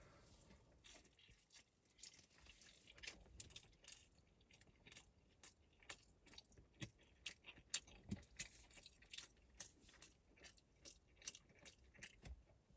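Near silence with faint, irregular clicks of someone quietly biting and chewing a breakfast sausage sandwich.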